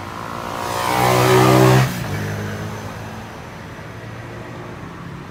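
A motor vehicle's engine swells loud for about a second, revving, then drops back abruptly and keeps running steadily at a lower level.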